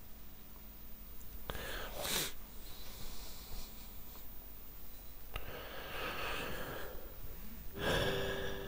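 A person breathing close to the microphone: three audible breaths or sighs, about two, six and eight seconds in. The last one has a short hum in it.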